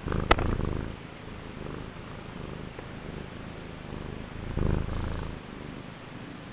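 Domestic cat purring vigorously, a steady low rumble that swells louder twice: once at the start, with a sharp click, and again about four and a half seconds in.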